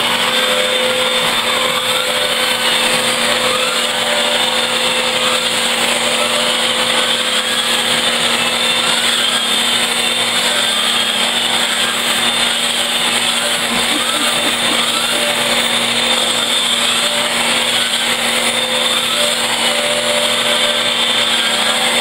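Vacuum cleaner running steadily, a constant whine over the rush of air, its hose nozzle drawn along a black and tan coonhound's coat to pull out shed hair.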